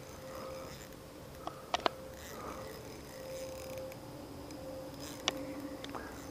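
Spinning reel worked while playing a hooked fish: a faint steady whir with a few sharp clicks, the loudest a pair about two seconds in.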